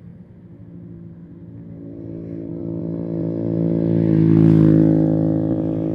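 Motor vehicle engine running at a steady pitch, growing louder over about four seconds to a peak, then easing off slightly.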